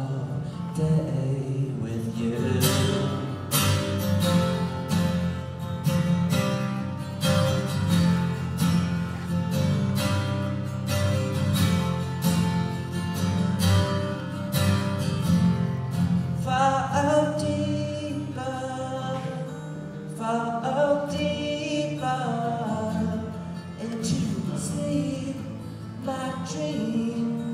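Live solo acoustic guitar strummed in a steady rhythm, with a man's singing voice coming in over it partway through.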